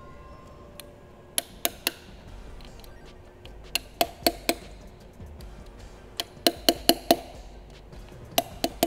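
Hammer tapping on the connecting-rod bolts of an engine block to separate the rod caps. Sharp metallic taps come in short runs of three to five, about four a second, with pauses between runs.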